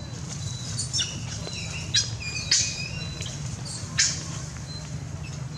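A handful of short, sharp high-pitched animal squeaks and squawks, one at a time a second or so apart, over a steady low hum.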